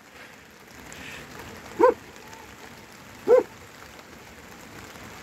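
Gaddi shepherd's dog barking twice, about one and a half seconds apart, over a steady hiss of rain. The shepherds take the heavy barking as a sign that a bear may be near.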